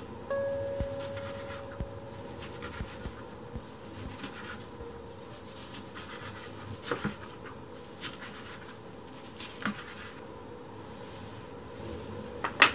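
Kitchen knife slicing through kimbap rolls on a plastic cutting board: soft scraping cuts and occasional knocks of the blade on the board, over a faint steady hum. A louder knock comes near the end.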